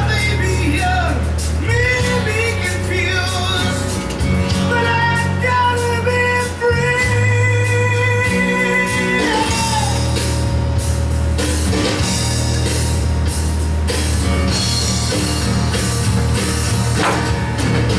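Rock music with drums, bass and guitar, and a melodic line that bends and wavers in pitch over a steady beat.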